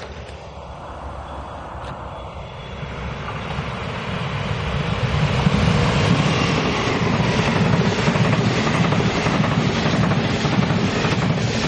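A train approaching and passing close by on the line. Its running noise grows louder over the first five or so seconds, then stays loud and steady with a faint rhythmic clatter.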